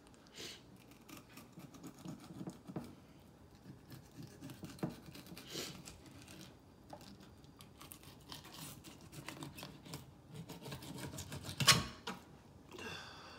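A fillet knife cutting along a crappie on a plastic cutting board: faint scratching and scraping as the blade works through the fish, with one sharp knock near the end.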